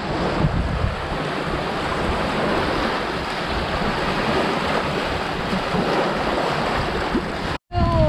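Surf washing on a sandy beach, with wind buffeting the microphone: a steady rush of noise that cuts off abruptly near the end.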